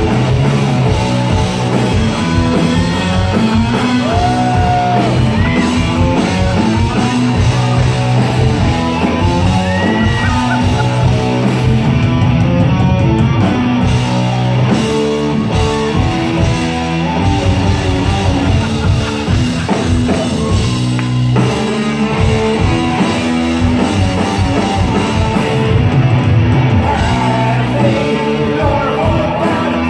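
Live heavy rock band playing: distorted electric guitar riff over bass and drums, with a singer's voice at times, heard loud from within the crowd.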